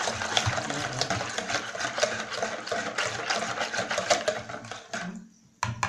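Stainless-steel balloon whisk beating a thin liquid in a plastic bowl: rapid rhythmic clicking and sloshing of the wires against the bowl. It stops about five seconds in, and a single sharp knock follows near the end.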